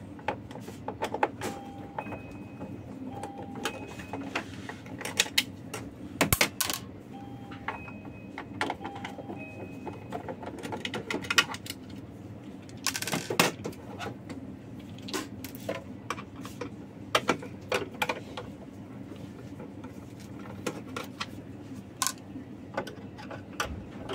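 Screws being undone from the plastic housing of a Saeco Pico Baristo coffee machine: irregular clicks, knocks and scrapes of the screwdriver and loosened screws, with a few short thin whines and one louder rattle about halfway through.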